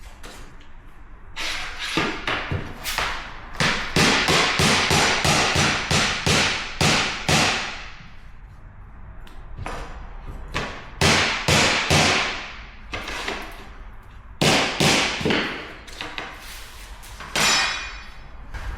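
Runs of sharp knocks, several a second, with short pauses between runs: a mallet tapping against a tapping block to seat click-lock vinyl flooring planks.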